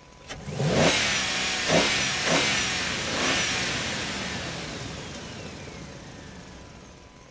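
An engine revving in three or four quick rising surges, then dying away over several seconds.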